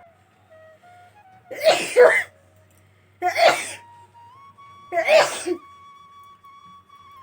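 A woman sneezing loudly three times, about a second and a half apart.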